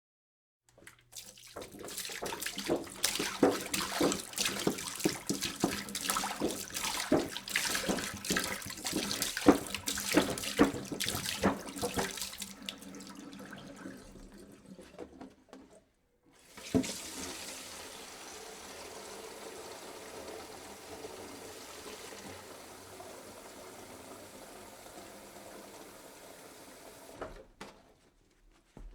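Water poured into a jug: a splashing, gurgling pour for about eleven seconds that tails off and stops, then a second, smoother and steadier pour for about ten seconds that cuts off near the end.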